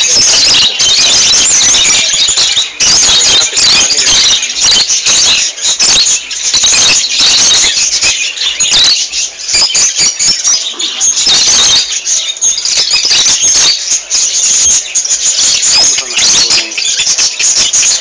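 A flock of caged lovebirds calling all at once: a loud, continuous chatter of shrill, high-pitched chirps and squeals.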